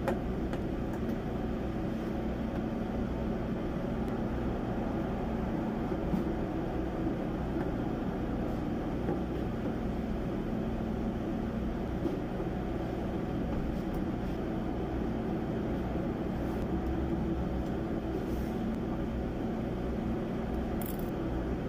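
Steady low machine hum in the background, with a few faint light clicks as screws of a car's plastic underbody cover are worked with a screwdriver.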